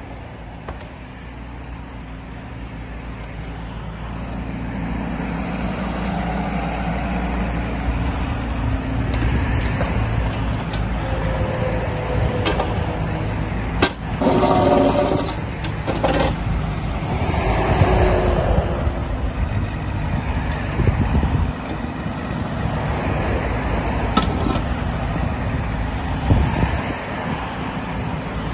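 Doosan DX10Z micro excavator's diesel engine running as the machine tracks along and works its boom, growing louder over the first few seconds. Several sharp knocks and clanks come in the middle of the run.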